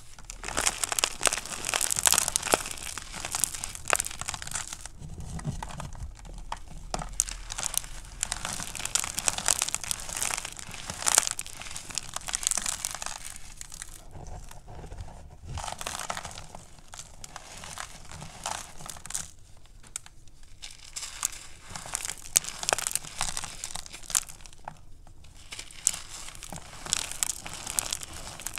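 Gym chalk blocks with a cornstarch crust crushed and crumbled in a bare hand: dense crunching and crackling of breaking chalk and grinding crumbs, coming in runs with a few short pauses.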